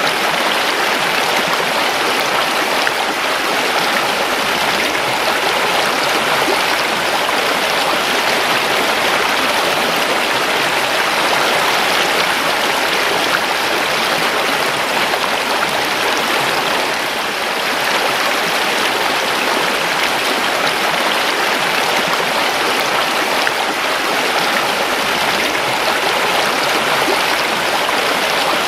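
Creek water flowing steadily, an even rushing that eases slightly about seventeen seconds in.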